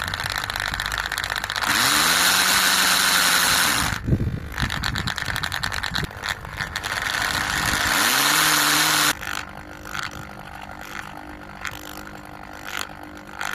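Parkside hammer drill running: its motor spins up twice to a loud, steady whine, each time for about two seconds, with irregular rattling clicks in between, then runs on quieter with scattered ticks near the end.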